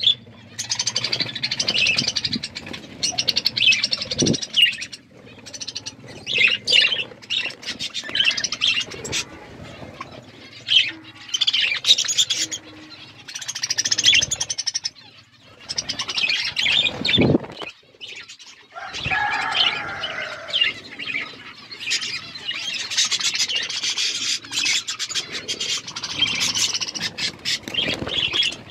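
Budgerigars chirping and chattering almost without pause, a dense flock warble of quick high chirps, with a couple of soft thumps.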